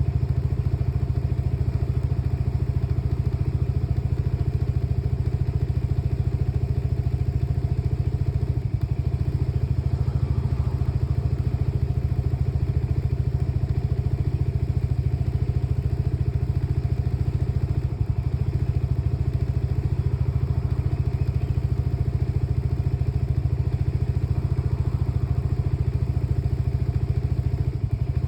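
Lexmoto Nexus 125cc scooter's single-cylinder engine idling steadily; the scooter has a misfiring fault.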